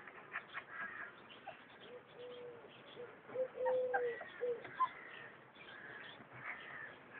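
A dove cooing, soft low calls in a short-long-short phrase around the middle, with other birds calling faintly higher up.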